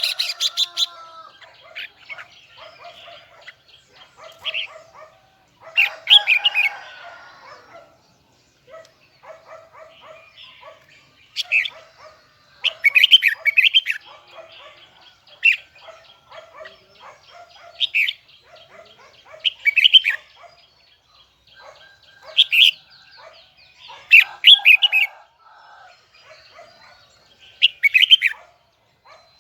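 Red-whiskered bulbul singing in loud, short, high phrases, about a dozen of them spaced a couple of seconds apart, over softer, lower repeated chirping of other birds.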